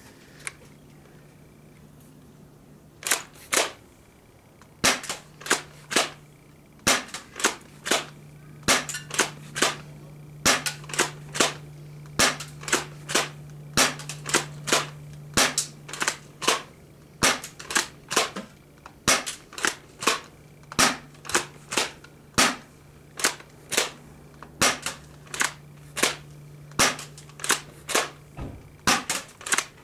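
Spring-powered airsoft shotgun being pumped and fired again and again: sharp pops about once or twice a second, often in close pairs, starting a few seconds in. A faint steady hum runs underneath.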